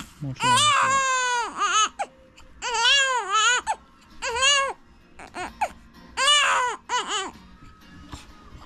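Newborn baby crying: a string of loud wails, each rising and falling in pitch, the longest about a second and a half, with short gaps for breath between them.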